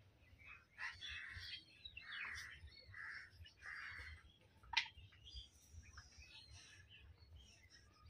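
Faint bird calls, short notes repeated about once a second with a few higher chirps, with a single sharp tick near the middle.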